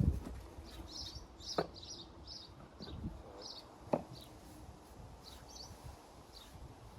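A dull thump at the start, then two sharp knocks about two seconds apart, over many short chirps from small birds.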